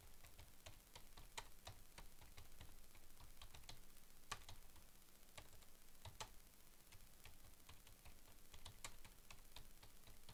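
Faint computer keyboard typing: a run of irregular key clicks as a phrase is typed out.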